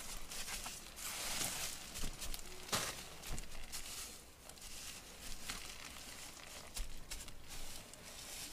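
Rustling and crinkling handling noise with several sharp knocks or snaps, the loudest about two to three seconds in.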